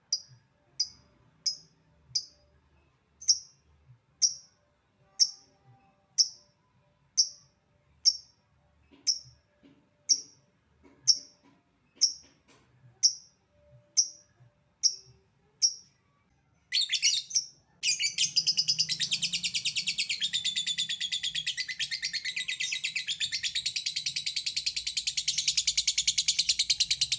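Lovebird calling: single sharp 'tik' chirps about once a second (ngetik), then from about 17 seconds in a long unbroken rapid chatter (ngekek), the extended call that stirs other lovebirds to answer.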